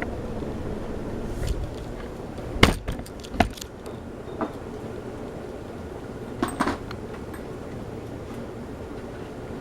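Casablanca Delta 2 ceiling fan running on high: a steady low rush of moving air, broken by a handful of sharp clicks in the first seven seconds, the loudest about three seconds in.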